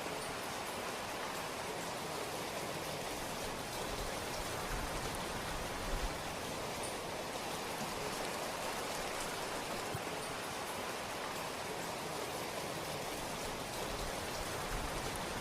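Steady rain falling: a dense, even hiss of many drops, with a few faint high ticks of single drops. A couple of soft low thumps come about five to six seconds in and again near the end.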